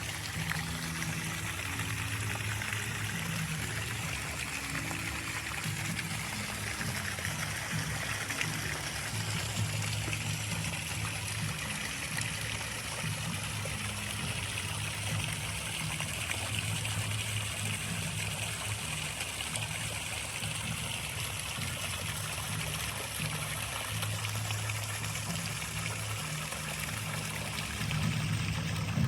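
Water trickling steadily, with low tones underneath that shift every second or two.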